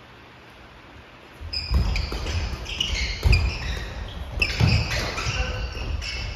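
Badminton doubles rally on a wooden gym floor, starting about a second and a half in: rackets striking the shuttlecock, shoes squeaking and footsteps thudding on the boards, echoing in the hall.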